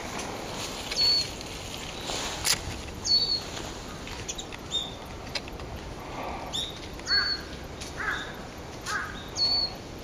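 Wild birds calling: a high thin call that drops quickly and then levels off repeats about four times, and three short, harsher calls come about a second apart in the second half. A few sharp clicks are heard between the calls.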